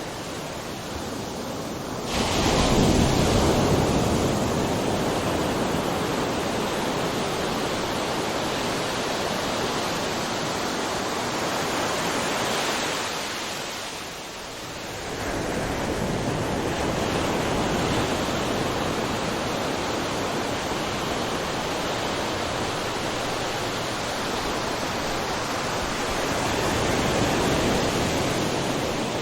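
Ocean surf: a wave breaks suddenly about two seconds in and washes on, the sound falls away briefly midway, then the next wave rises and rushes in.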